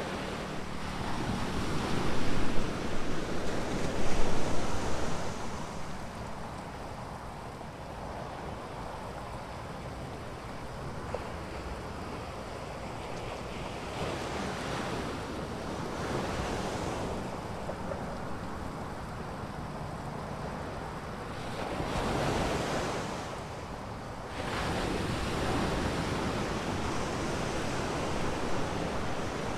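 Ocean surf breaking and washing up on a beach, with wind on the microphone. The loudest surges come about two and four seconds in, and another around twenty-two seconds in.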